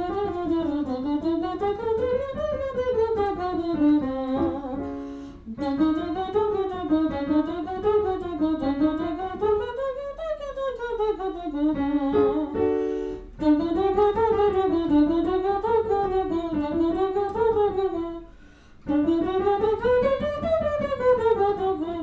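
A woman singing a warm-up pattern with closed lips as a semi-occluded vocal tract exercise, her pitch zigzagging up and down in steps over several seconds per run. Short keyboard chords sound between runs, and each new run starts slightly higher.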